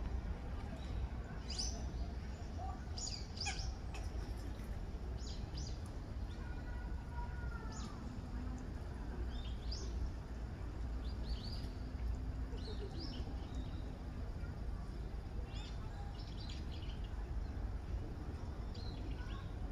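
Birds chirping in short, high calls, scattered irregularly, over a steady low rumble.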